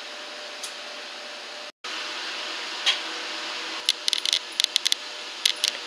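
Steady whir of room air noise, then a brief cutout about two seconds in, then a run of sharp, light clicks in small clusters: glass beads on a display rack's metal rods clicking together as the rack is handled.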